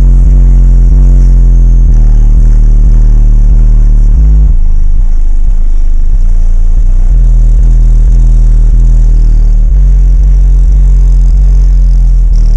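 Extremely loud, deep bass music from four AudioQue HDC18 18-inch subwoofers mounted blow-through, so loud it overloads the recording. The bass notes pulse and change in a repeating pattern, with a shift in the pattern about four and a half seconds in.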